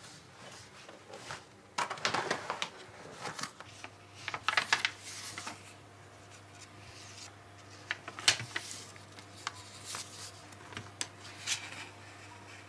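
Paper pages of a notebook being handled and turned: a series of short, soft rustles and clicks, with a faint steady hum coming in about four seconds in.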